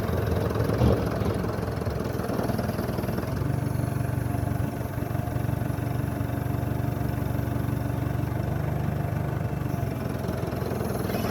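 Case CS94 tractor engine running steadily, with one brief knock about a second in.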